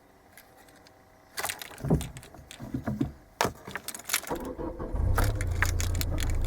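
Car keys jangling and clicking at the ignition of a Citroën Xantia, then its engine is started a little after four seconds in and settles into a steady idle. It starts with the security keypad disconnected.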